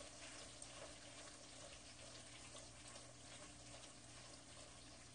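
Faint sizzling and bubbling of black bean paste (chunjang) frying in oil in a wok, over a low steady hum.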